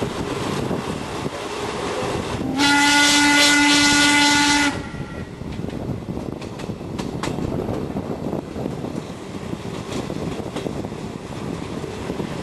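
Steam locomotive BDZ 46.03's whistle blown once, a steady blast of about two seconds starting some two and a half seconds in, over the continuous rumble and clatter of the train running.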